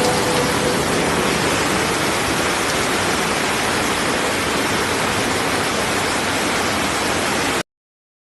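A steady, even rush of water that cuts off abruptly near the end.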